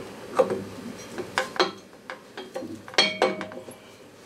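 Metal parts at the gearcase of a Seagull outboard clinking and clanking as they are handled and fitted by hand: a run of sharp knocks, with a brief metallic ring about three seconds in.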